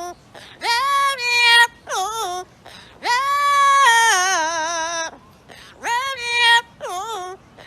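A pet parrot singing wordless, high, clear notes in short phrases with swooping starts, including one long held note of about two seconds that wavers in pitch.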